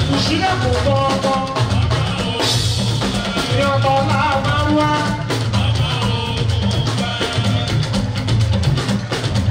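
Live fuji band music: drums and percussion over a bass line, with guitar and singing.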